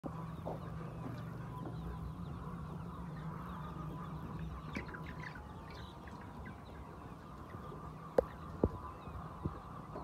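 A large flock of white laying hens clucking and calling over a steady hum, with a couple of sharp knocks near the end.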